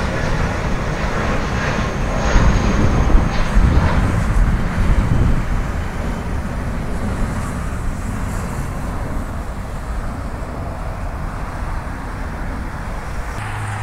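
Jet engines of a departing jetBlue twin-engine airliner rumbling loudly as it climbs away after takeoff. The rumble is loudest a few seconds in, then slowly fades as the plane gains distance.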